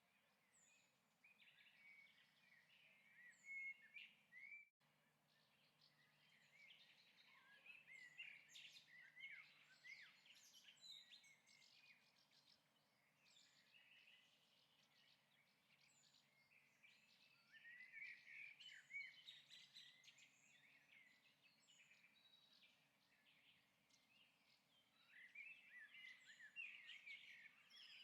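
Faint birdsong: many small birds chirping in busy clusters that swell and fade, from a stock birds-chirping sound-effect track. The sound cuts out for an instant about five seconds in.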